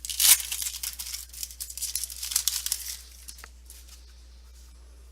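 Foil trading-card pack wrapper being torn open and crinkled for about three seconds, followed by a light click or two.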